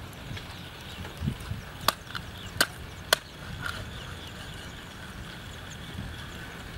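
Cleaver chopping raw chicken on a wooden log chopping block: three sharp chops between about two and three seconds in, with a softer knock just before them.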